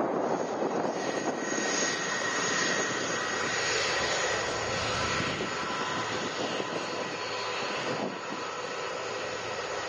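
Airbus A330-200 jet engines at taxi power as the airliner moves slowly past: a steady rushing jet noise with a thin high whine. It slowly grows quieter as the aircraft turns away.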